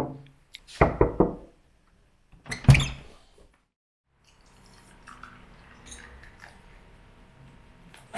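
A few sharp knocks and clunks of objects being set down or handled, the loudest about two and a half seconds in. After a short break, a faint steady background with a few light clicks follows.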